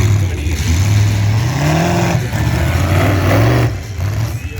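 Demolition derby cars' engines running hard and revving, their pitch rising and falling, with a brief drop in loudness near the end.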